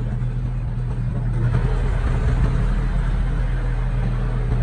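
Diesel engine of heavy earthmoving equipment running steadily with a low hum, growing louder and rougher from about a second and a half in.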